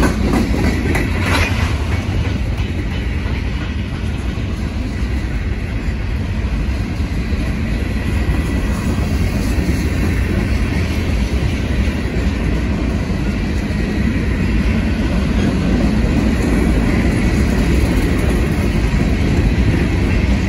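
Freight train of covered hopper cars and a tank car rolling past at close range: a steady rumble of steel wheels on the rails, with a few sharp clicks about a second in.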